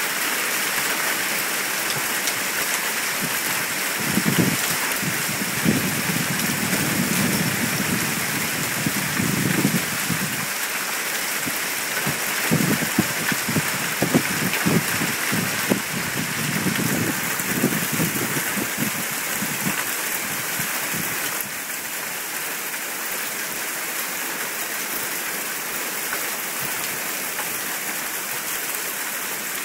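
Hail falling steadily: a dense hiss of pellets with frequent sharp clicks of stones striking, thickest between about 4 and 20 seconds in. It gets a little quieter, with fewer clicks, after about 21 seconds.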